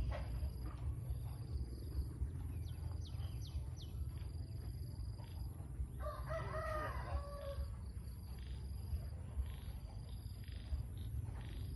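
A rooster crowing once, one call of about a second and a half starting about six seconds in, over a steady low rumble.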